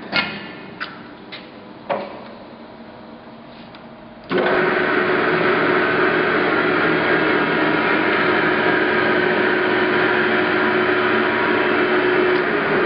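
Victor 1640G gap bed engine lathe, driven by a 5 hp motor, running: its running sound dies away at the start and a few sharp clicks follow in the quiet. About four seconds in, the running sound comes back abruptly and then holds steady, with a constant hum through it.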